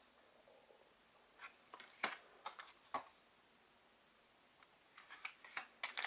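Pokémon trading cards being slid apart and flipped through by hand: faint, short clicks and brushing of card edges, a few scattered ones and then a quicker run near the end.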